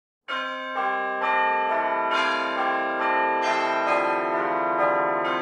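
Bells ringing a peal as opening music: struck notes about two a second, each one ringing on under the next.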